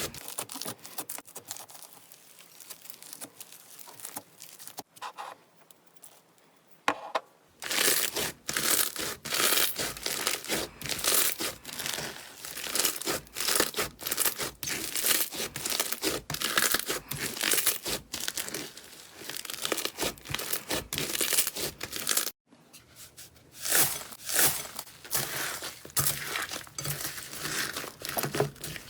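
Slime being squeezed and pulled close to the microphone, making a dense run of crackling clicks and pops. It is softer for the first several seconds and louder from about seven seconds in, with a short break a little past twenty seconds.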